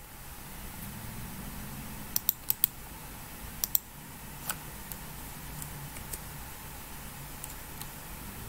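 A few scattered clicks of computer keys: three quick ones about two seconds in, two more a second later, then fainter single clicks, over a low steady hum of room background noise.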